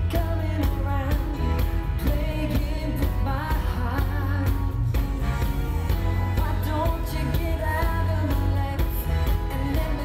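Live pop music: a male vocal harmony group singing together into microphones over a band with drums and heavy bass, amplified through a concert PA.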